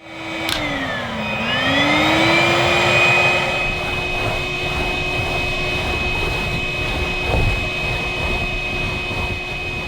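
Henry Cordless (HVB160) vacuum cleaner running with a steady high whine over a rush of air; about a second in the motor pitch dips and then climbs back up to a steady note.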